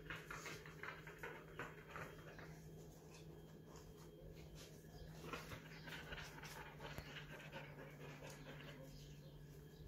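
A small dog moving close by on a tiled floor: faint dog sounds with light, quick clicks over a steady low hum.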